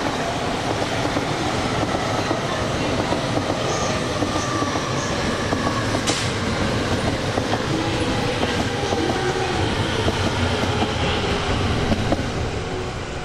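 Electric commuter train moving along the platform, its wheels clattering over rail joints, with a faint whine that falls gently in pitch.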